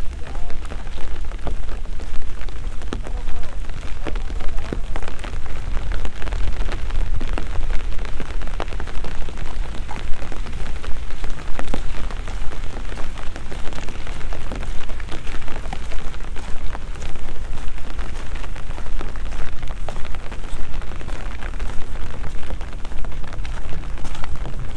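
Steady rain, with many close drops tapping sharply over a continuous low rumble.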